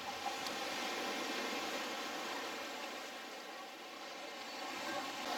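Steady outdoor hiss of seaside ambience, even throughout with no distinct events.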